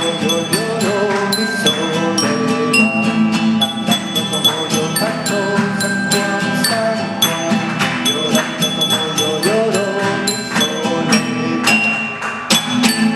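Live instrumental music: a fast run of struck, ringing pitched notes over a sustained low tone, with a wavering melody in the middle register.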